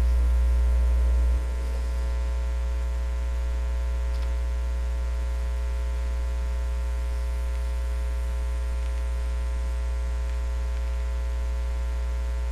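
Steady electrical mains hum in the recording, a low drone with a stack of thin higher buzzing tones above it. It steps down a little in level about a second and a half in.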